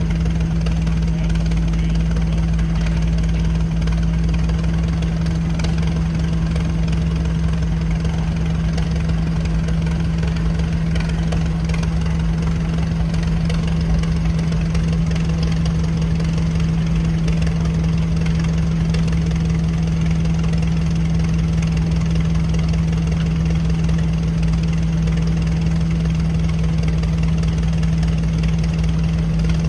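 Vintage tractor engine running steadily with an unchanging low hum, with no sawing or load changes heard.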